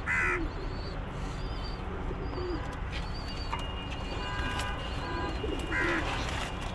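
Domestic pigeons cooing: several short, low coos a second or two apart over a steady low rumble of background noise.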